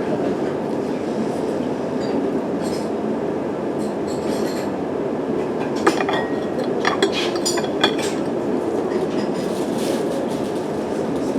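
Steady rumbling noise with a cluster of sharp clinks and clicks about six to eight seconds in.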